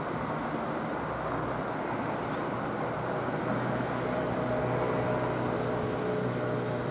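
Steady outdoor rumble with an engine hum in it, a few steady pitched tones becoming clearer and a little louder about halfway through.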